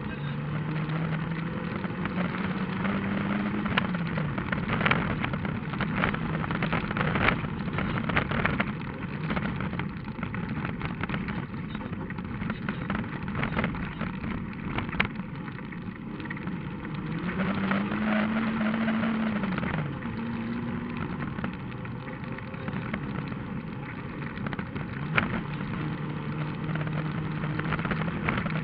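Rally car engine running hard on a gravel road, its pitch climbing and dropping through gear changes, with loose stones knocking against the car's underside.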